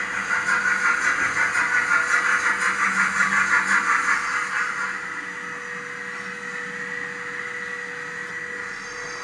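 HO-scale model of a class 85 steam locomotive running along the track with a rhythmic, hissing pulse. The pulse swells for the first four seconds or so as the engine comes close, then fades, over a steady hum.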